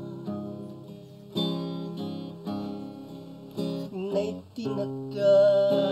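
Background music: a slow ballad on acoustic guitar, chords strummed about once a second and left to ring out.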